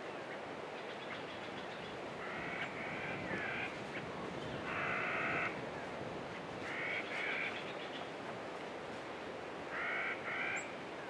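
A crow-like bird cawing, four harsh calls a couple of seconds apart, some of them doubled, over a steady background hiss of desert ambience.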